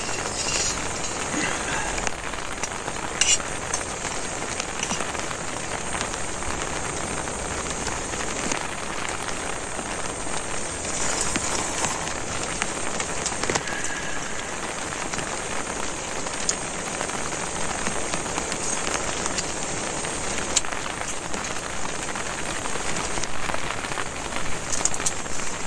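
Heavy rain falling steadily on a tent's fly, heard from inside the tent, with a few brief clicks.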